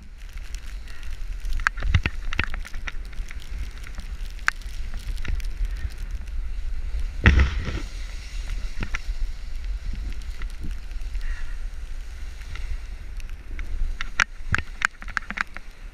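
Wind buffeting the microphone of a camera riding on a snowboarder carving down a groomed ski run, with the board scraping over the snow. Scattered sharp clicks and knocks, and a louder thump about seven seconds in.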